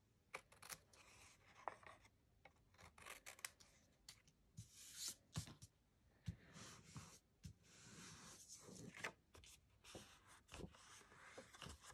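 Faint snips of small craft scissors trimming the overhanging strips of glued patterned paper off a card panel's edge, then hands rubbing and handling the card stock, with scattered light clicks and scratchy strokes.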